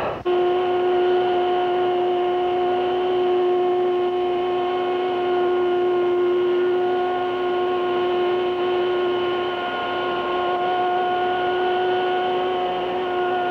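Spindle of a template-guided metal-cutting machine whining steadily as it cuts through several stacked thicknesses of sheet metal at once. One held pitch with overtones, starting abruptly just after the start.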